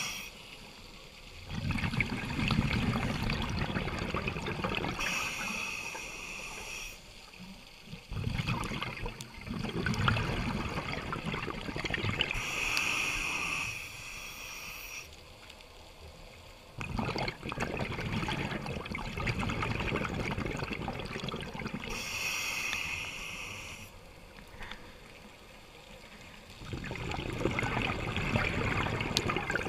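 A scuba diver breathing through a regulator underwater: a hissing inhale, then a bubbling, gurgling exhale, repeating about every eight to nine seconds.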